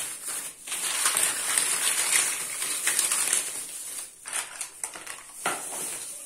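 Thin plastic bag crinkling while in-shell walnuts are poured out and clatter onto a pile of unshelled peanuts and nuts on a woven tray, a dense rattle of many small knocks for about four seconds. Then a few separate clicks as the walnuts are shifted by hand.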